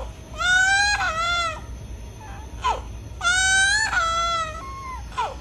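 A child crying in a high-pitched, looped sound effect: two wails about a second long, each followed by a short falling sob.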